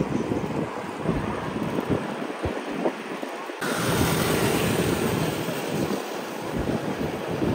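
Wind buffeting the microphone: an irregular rumbling noise that gets louder and brighter about three and a half seconds in.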